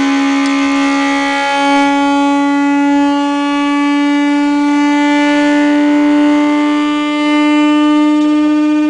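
Loudspeaker driven by a computer tone generator, playing one continuous buzzy tone whose pitch rises slowly, as the frequency is swept upward to set a plate resonating.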